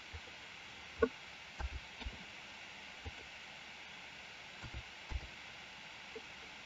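Steady faint microphone hiss with about eight soft clicks and knocks scattered through it, the loudest about a second in: computer mouse clicks and small knocks on the desk.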